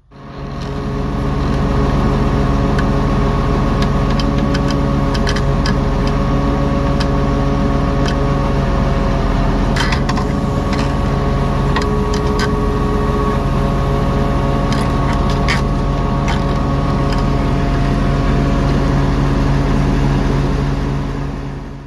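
Farm tractor engine running at a steady speed, with a few sharp metal clanks around the middle and again a little later.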